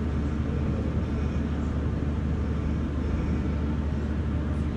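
Steady low rumble and hum of a prayer hall's room tone, with a constant deep hum and no voices while the congregation bows in silence.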